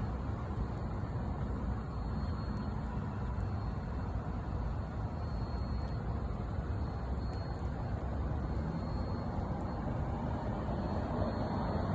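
Steady low background rumble with no distinct events, of the kind distant traffic makes. A faint, thin high tone comes and goes over it.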